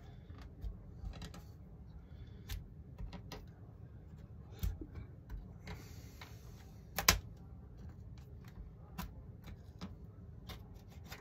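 Irregular light clicks and taps of parts and tools being handled on a workbench building board, with one sharper knock about seven seconds in and a brief rustle just before it.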